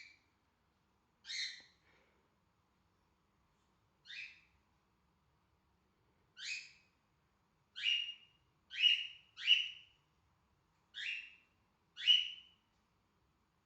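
Cockatiel giving short, separate calls, about nine in all, coming closer together and louder in the second half.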